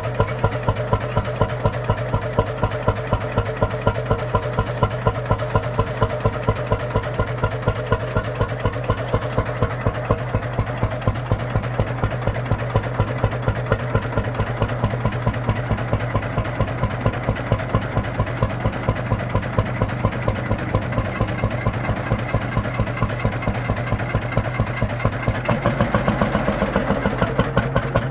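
Lanz Bulldog's single-cylinder two-stroke hot-bulb engine idling with its slow, even beat, about five strokes a second, warm and running on its own after blowtorch preheating. Near the end the beat quickens a little.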